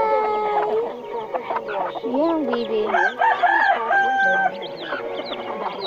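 Chickens calling: a rooster crowing near the start, clucking calls a few seconds in, and many short high peeps from chicks throughout.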